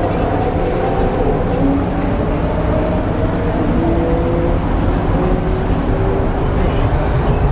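MTR East Rail Line R-train electric train running, heard on board: a steady low rumble with faint electric motor whine tones that shift in pitch.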